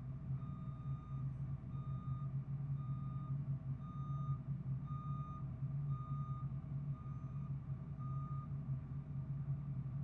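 Vehicle reversing alarm beeping steadily, eight beeps about once a second, over the low steady hum of an idling truck engine; the beeping stops shortly before the end.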